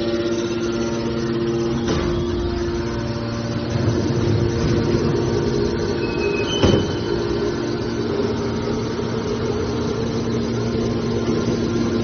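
Automatic metal baler running: a steady machine hum, with a sharp knock about two seconds in and a louder one a little past halfway.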